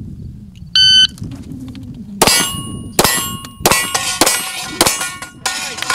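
Electronic shot timer beeps once, about three-quarters of a second in. About a second and a half later a pistol fires a fast string of shots, roughly one every 0.6–0.7 s, at steel silhouette targets, and each hit leaves the steel clanging and ringing.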